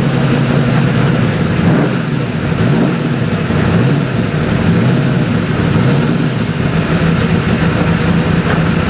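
Small-block Chevy V8 of a 1985 IMSA TransAm Buick Somerset race car running at low revs, heard from inside the cockpit, its pitch wavering slightly up and down as the throttle is eased on and off.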